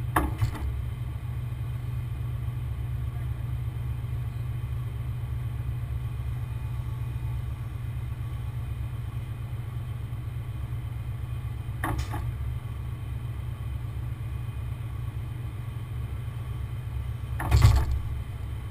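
Heavy truck engine running steadily with a low rumble, with three brief clunks: one near the start, one about twelve seconds in, and a louder one near the end.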